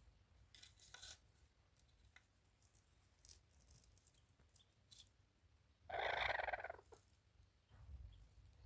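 A single animal call, just under a second long, about six seconds in, between faint scattered clicks and rustles.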